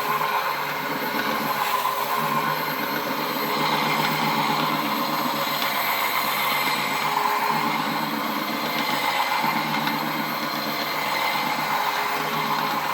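Rotary floor polishing machine running steadily on a stone floor, a continuous motor hum with pad-on-stone friction noise that swells and eases slightly.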